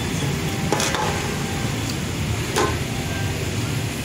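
Cooking at a steaming noodle pot: a steady low rumble with two sharp knocks of a utensil against the pot, about a second in and again a little past halfway.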